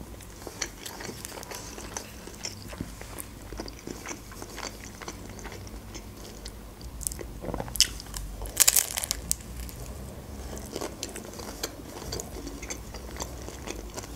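Chewing with small wet mouth clicks, then a loud crunchy bite into a crisp, oven-baked lavash cone filled with rice, cream cheese, avocado and crab stick about eight and a half seconds in, followed by more chewing.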